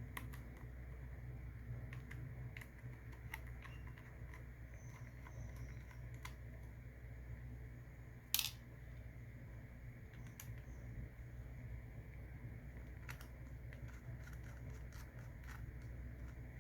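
Scattered small clicks and taps of small tools and laptop parts being handled, with one sharper click about eight seconds in, over a steady low hum.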